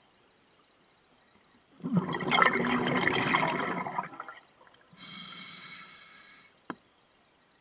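Scuba diver breathing through a regulator: a loud gush of exhaled bubbles about two seconds in that lasts around two seconds, then the hiss of an inhalation, followed by a single sharp click.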